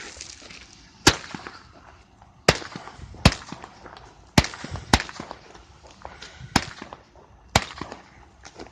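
A 200-gram consumer firework cake ('Dragons') firing its seven shots: seven sharp launch pops, unevenly spaced over about seven seconds, with fainter crackle between them. The shots carry no loud bursting reports overhead.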